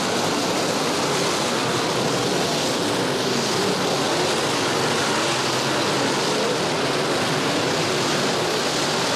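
A field of IMCA Modified dirt-track race cars running together at speed, their V8 engines making a steady, dense roar with several engine notes rising and falling.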